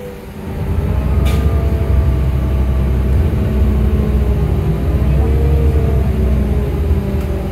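City bus with a Cummins ISL diesel engine and Allison B400R6 automatic transmission, heard from inside as it drives: a steady low rumble with a wavering drivetrain whine. The sound swells back up just after the start as the engine pulls again. One sharp click about a second in.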